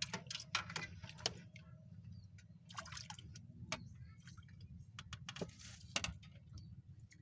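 Irregular small splashes and drips of water, faint, with a steady low hum underneath.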